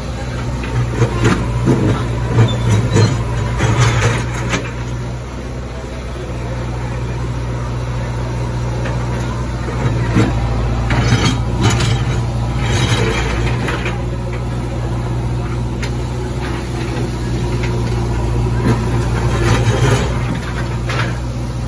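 JCB backhoe loader's diesel engine running steadily while its rear bucket breaks up a concrete footpath, with bursts of clattering and knocking from the broken slabs a few times.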